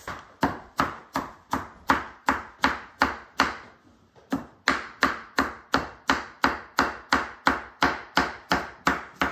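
Kitchen knife dicing onion on a wooden cutting board: a steady run of blade knocks about three a second, with a brief pause about four seconds in.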